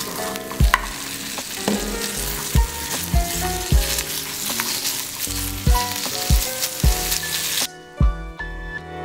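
Minced chicken with chopped onion and garlic sizzling in hot oil in a non-stick frying pan, stirred with a wooden spatula. The sizzling cuts off suddenly near the end. Background music with a steady beat runs throughout.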